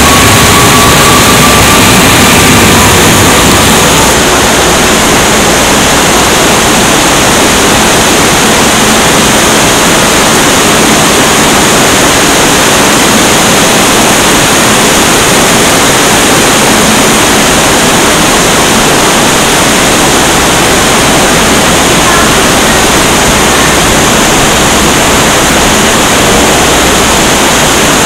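Heavy rain pouring down, a loud steady hiss. In the first few seconds a passenger train rolling past adds a faint, gently rising whine.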